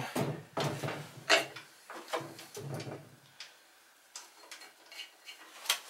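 Bolts being fitted by hand through a snow thrower's front engine bracket into the new engine's mounting holes: a few separate light metal clicks and knocks, the loudest about a second and a half in and another near the end.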